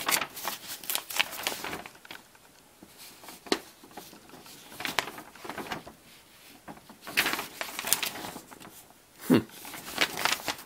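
A paper instruction sheet rustling and crinkling as it is unfolded and its pages turned, in irregular short spells with quieter gaps between.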